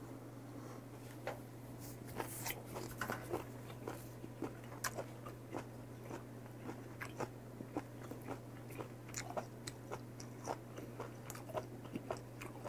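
A person chewing chewy boiled octopus close to the microphone: irregular wet mouth clicks and smacks, a few a second, over a steady low hum.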